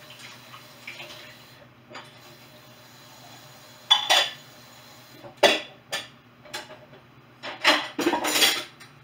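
Dishes and cookware clattering and clinking at a kitchen sink as they are washed and handled. Faint light clinks come first, then a run of sharp clanks from about four seconds in, the loudest near the end.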